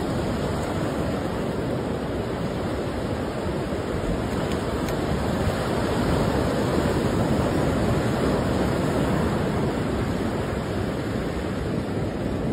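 Ocean surf breaking and washing onto a sandy beach, a steady rush of noise.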